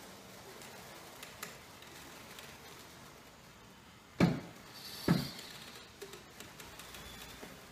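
Automated pee-pad dispenser's mechanism clunking as it draws a pad across its tray: two sharp knocks about a second apart, with a few faint ticks around them.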